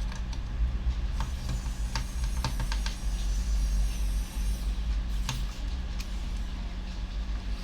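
Light clicks and taps of small parts being handled and fitted inside an opened laptop, a handful of short sharp clicks spread through, over a steady low hum.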